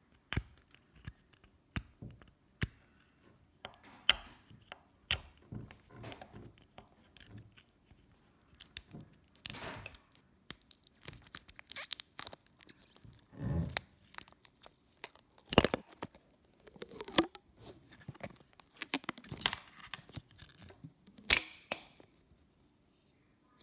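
Fingernails picking and peeling protective plastic film off a newly unboxed Lightning to HDMI adapter close to the mic: an irregular run of sharp little clicks and scratchy tearing rasps, with a few louder rasps along the way.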